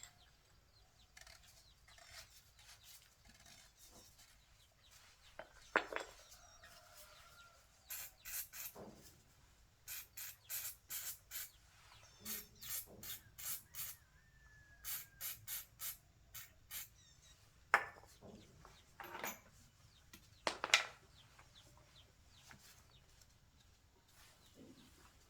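Runs of short rasping strokes, about two to three a second, like hand sanding or filing on a part, with a few louder single scrapes.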